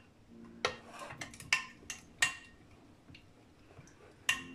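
Metal teaspoon clinking against a small glass bowl while stirring fresh brewer's yeast into warm water to dissolve it: a quick run of ringing clinks in the first couple of seconds, then one more near the end.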